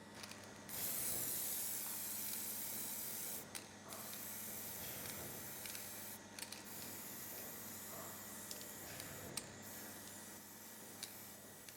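Aerosol can of Lusin mold-maintenance spray hissing in long bursts. It starts suddenly about a second in, is loudest for the first few seconds, then goes on slightly quieter with short breaks roughly every three seconds.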